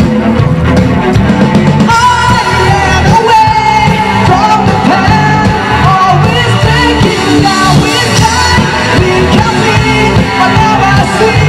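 Live rock band playing: a man sings into a microphone over electric guitar and drums. A held note rings for the first couple of seconds, then the vocal line comes in.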